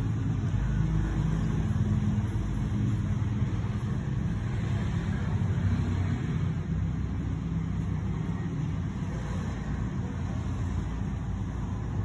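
Steady low mechanical rumble with a faint hum, like a motor running.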